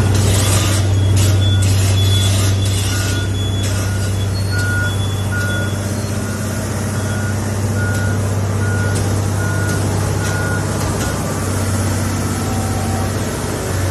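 Heavy diesel demolition machine running steadily, its reversing alarm beeping at an even pace of about one beep every three-quarters of a second, with clattering crashes of demolition debris in the first few seconds.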